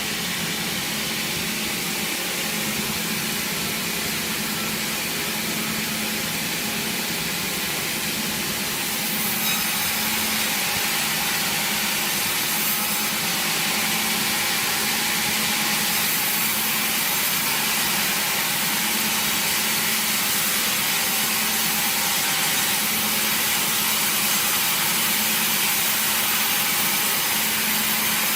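Sawmill machinery sawing through wood: a steady, continuous cutting noise over a motor hum, growing a little louder about nine seconds in.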